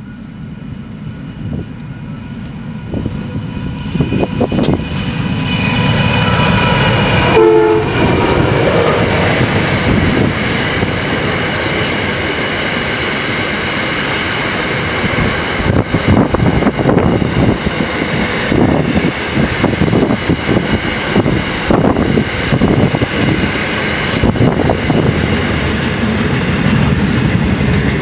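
Freight train hauled by an NR class diesel-electric locomotive, approaching and passing close by. The noise builds over the first few seconds, and a brief horn note sounds about seven seconds in. After that, loaded ore wagons and container flat wagons roll past in a steady rumble, with wheels clacking over the rail joints.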